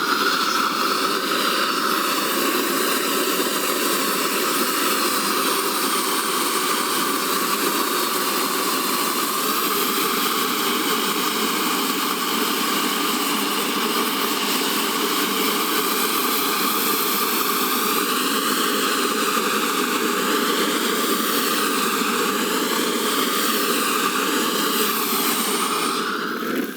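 Gas burner flame running steadily, heating ChipFill asphalt repair material to lay it into the road surface. It starts suddenly, wavers in tone for a while in the later part, and dies away near the end.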